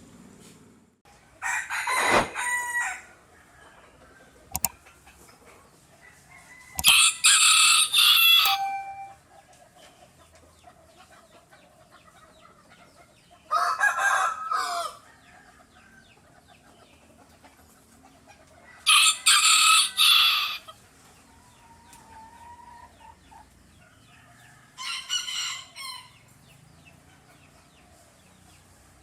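A tiny rooster crowing five times, about every five to six seconds. Each crow lasts one to two seconds, and the last one is shorter.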